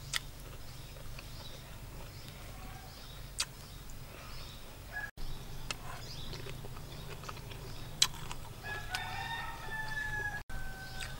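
A rooster crows once near the end, a long pitched call lasting nearly two seconds that cuts off abruptly. A few sharp clicks come before it.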